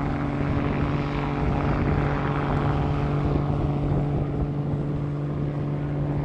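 Crop-spraying helicopter's engine and rotor running steadily, a constant drone with a rushing noise that swells about a second in and then eases.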